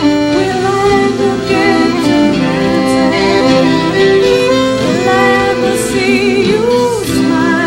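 Live acoustic trio music: a fiddle playing a melody with vibrato, backed by acoustic guitar and keyboard.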